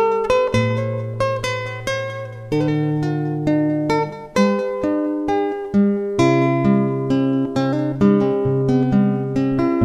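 Background music: plucked acoustic guitar playing a steady run of notes over held low notes.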